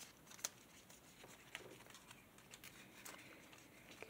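Faint crinkling and clicking of origami paper being pressed and folded between fingers: scattered small ticks, the sharpest about half a second in.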